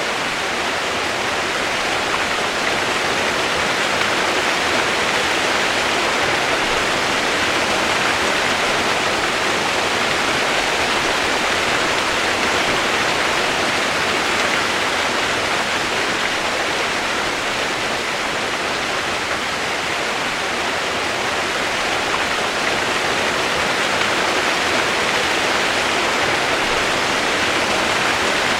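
Steady rain-sound white noise: a continuous, even hiss with no distinct drops or pauses.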